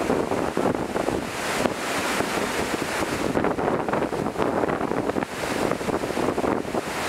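Surf washing up a sandy beach, with wind buffeting the microphone.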